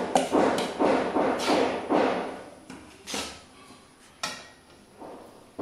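Steel spatula scraping and knocking against a metal kadhai while coarse wheat flour is stirred into hot ghee: a quick run of strokes for about two seconds, then two single strokes further apart.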